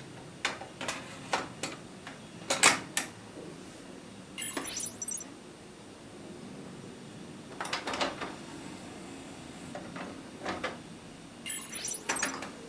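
Plastic clicks and clunks from a 1990s Aiwa NSX-S52 hi-fi system's buttons and mechanisms being worked, with two short mechanical whirs, about four and a half and eleven and a half seconds in.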